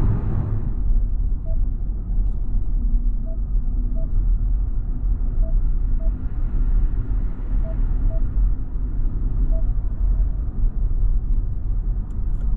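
Steady low road and tyre rumble inside a moving Kia EV6 electric car, with no engine note. A few faint short beeps come every second or two.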